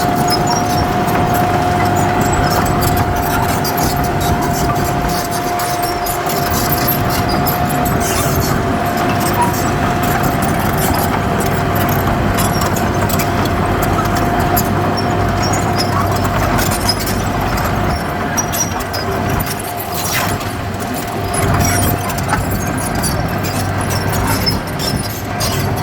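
Heavy earthmoving machinery with its diesel engine running steadily under a steady high-pitched whine that fades near the end. Scattered clanks and a sharp knock about twenty seconds in.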